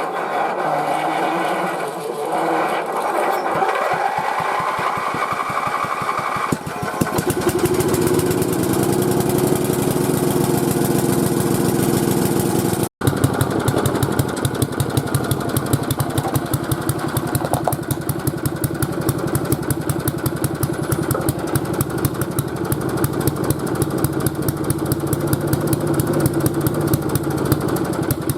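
Rover Colt 8 ride-on mower engine being cranked by its starter, catching about seven seconds in and then running with a fast, even beat. The engine is not running very well.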